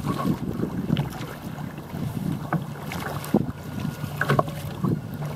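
Wind buffeting the microphone of a bow-mounted camera on a sea kayak, over a steady low rumble of choppy water, with a few short splashes as small waves slap against the hull.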